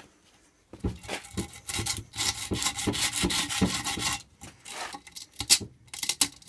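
Scrap of grip tape rubbed hard along the edge of a freshly gripped Apex scooter deck, filing the grip tape's edge down so it sticks: a run of rough rasping strokes starting about a second in, then shorter, more scattered scrapes.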